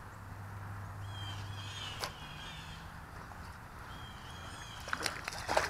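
Birds chirping faintly in short repeated notes in the background, with a sharp click about two seconds in and a louder cluster of clicks and rustling near the end.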